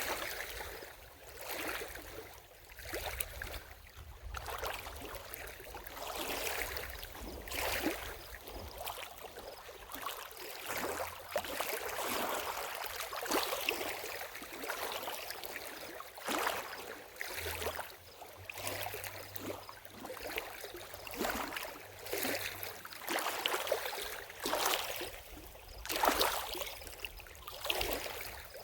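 Lake water lapping, in irregular small splashes and surges a second or two apart.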